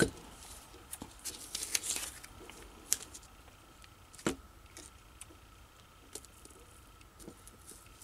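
Blue painter's tape being handled and pressed onto a steel knife blade: soft crinkling with scattered light clicks and taps, a sharper tick right at the start and another about four seconds in.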